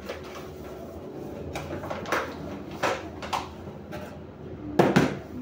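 Kitchen items being handled and set down during food preparation: a series of light knocks and clunks, the loudest near the end.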